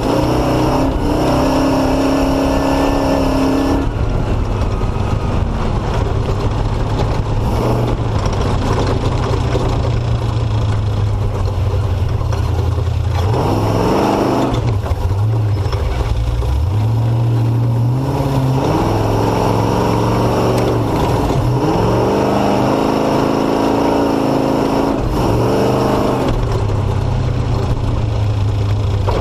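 Off-road motorcycle engine running under load on a dirt two-track, its revs rising and falling several times in the second half, over a steady rushing noise.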